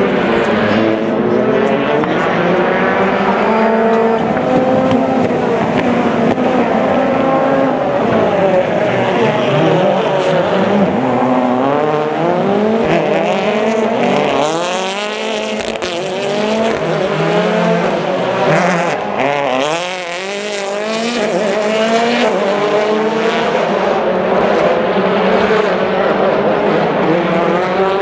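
Rally car engines revving hard on a race circuit, more than one engine at once, their pitch climbing and dropping again and again through gear changes and braking.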